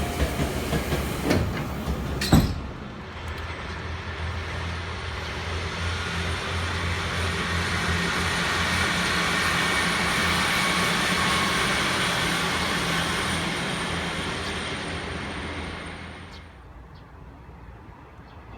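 Electric commuter train's doors shutting with a sharp knock about two seconds in, then the train pulling out from the platform, its running noise swelling and then fading away near the end.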